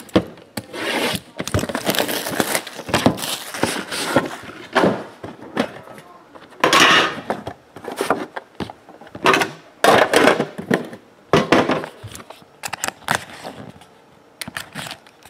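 Hands handling and opening a cardboard trading-card box: irregular scrapes, rustles and taps as the outer box is opened, the inner lid lifted and the small red card box slid out.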